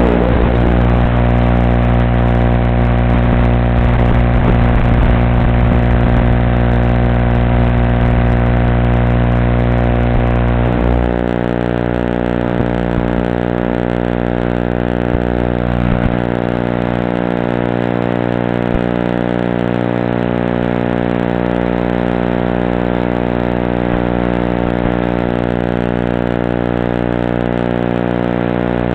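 Steady droning buzz from the GB190 FPV quadcopter, recorded through its onboard camera audio, made of many even, unchanging tones. About eleven seconds in the low part drops away and it gets slightly quieter, then holds steady.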